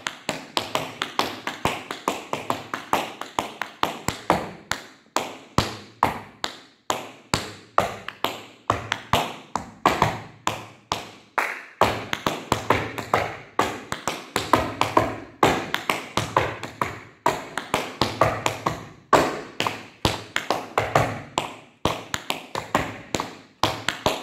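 Tap shoes striking a wooden floor in a fast tap-dance combination: a quick run of metal taps, several a second, some lighter and some heavier, with a short break about halfway through.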